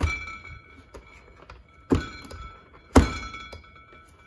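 Black+Decker electric hand mixer whirring in thick cookie dough, with three hard thunks of the mixer and bowl knocking together: one at the start, one about two seconds in and one a second after that.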